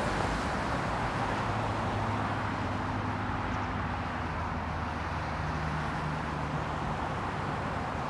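Steady outdoor rumble of distant traffic with a low hum underneath, easing slightly over a few seconds.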